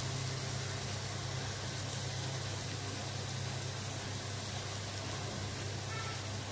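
Hot oil sizzling steadily in a pan as a tempering of dried red chillies, curry leaves and crushed garlic, pepper, cumin and asafoetida fries, with a steady low hum underneath.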